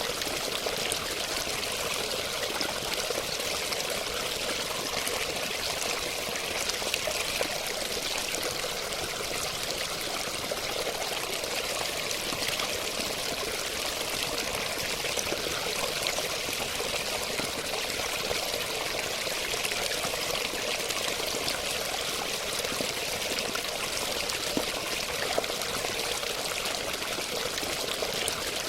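Running water flowing steadily, an even splash with no breaks or changes.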